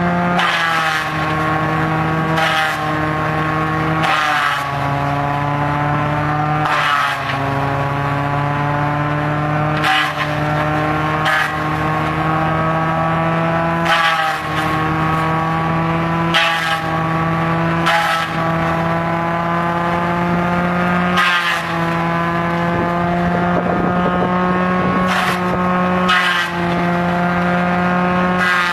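Tractor-PTO-driven crusher chopping coconut palm fronds: the tractor engine and cutter rotor make a steady, loud drone, with a burst of chopping every second or two as fronds are fed in. The drone sags in pitch at each feed as the load drags the machine down.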